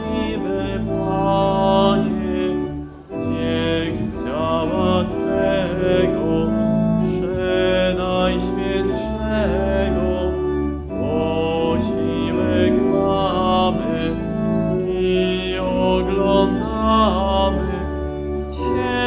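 A hymn sung by a voice with organ accompaniment: held low organ notes under a wavering melody line, continuous throughout.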